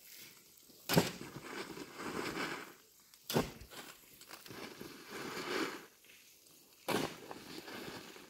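Three sharp knocks or impacts, the first about a second in, the next past three seconds and the last near seven seconds, with stretches of noise between them.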